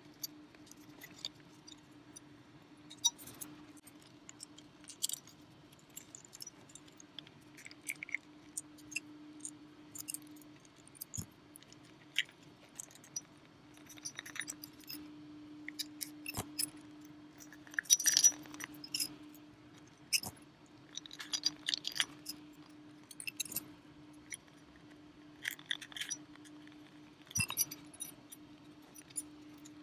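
Small clicks, clinks and scrapes of the Sigelei 213 box mod's parts being handled and fitted back together during reassembly, in scattered bursts with a busier cluster a little past halfway, over a faint steady hum.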